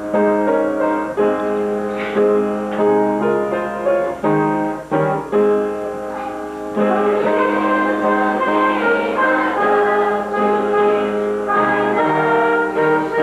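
Music: a keyboard instrument playing a tune in held chords, with the notes changing every second or so.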